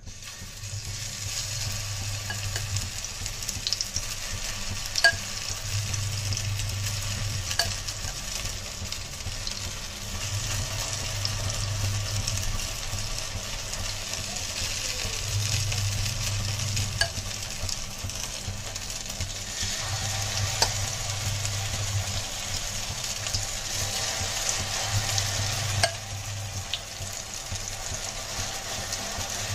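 Grated potato and egg-white batter sizzling in hot oil on a flat tawa as it is spooned on and spread into rounds, with a few sharp clicks of the metal spoon against the griddle.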